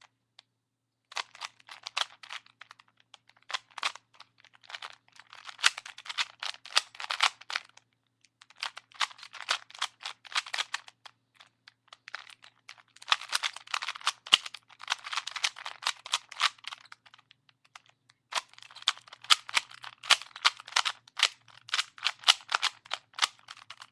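Rubik's Cube being turned rapidly in a speed solve: fast plastic clicking and clacking of the layers. The clicking comes in bursts of a few seconds, with short pauses between them.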